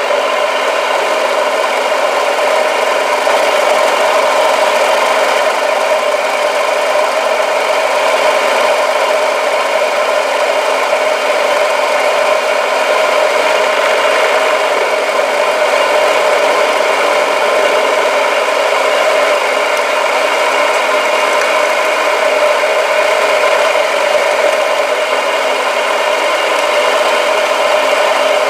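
Vertical milling machine running, its face mill cutting a metal block: a loud, steady machining noise with a constant whine over the grinding of the cut, starting suddenly at the outset.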